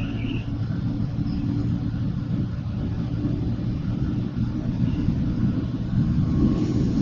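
Steady low rumble of a moving vehicle on the road.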